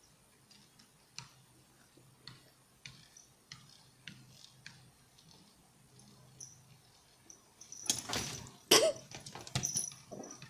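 A cat scrambling up onto a window sill through slatted window blinds: faint scattered ticks, then, about eight seconds in, a louder rattling clatter with several sharp knocks.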